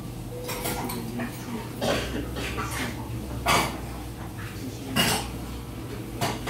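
A long metal spoon clinking against a heavy black soup pot, several sharp clinks about a second and a half apart, over a low steady hum.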